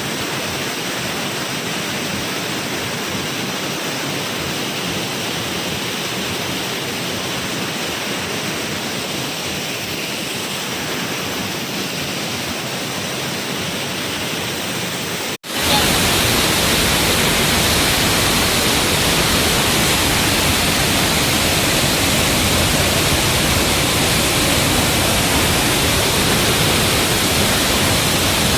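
Waterfall rushing steadily. About halfway through the sound cuts out for an instant and comes back louder and fuller, with more deep rumble.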